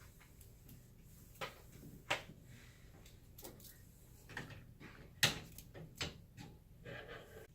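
Irregular light clicks and knocks of toy diner pieces being handled, play food and dishes set down and play-kitchen parts opened and closed; the sharpest knock comes about five seconds in.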